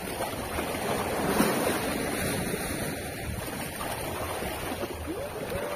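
Sea waves washing against shore rocks, with wind buffeting the microphone. Near the end a single pitched tone rises and then holds steady.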